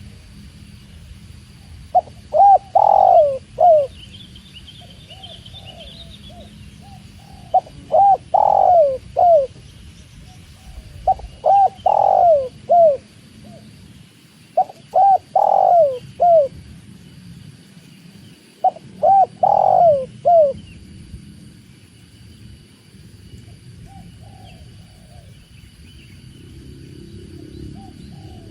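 Spotted dove (tekukur) cooing: five phrases of several falling coos, a few seconds apart, stopping about two-thirds of the way through. Faint high chirps of small birds come near the start.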